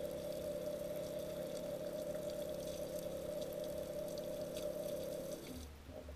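Outdoor shower water spraying and splashing onto skin and stone, with a steady hum underneath. Both stop fairly suddenly about five and a half seconds in.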